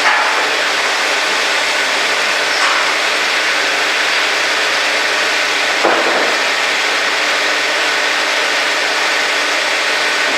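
Mobile horizontal band sawmill running steadily, a dense even machine noise with a few brief knocks, about three seconds apart.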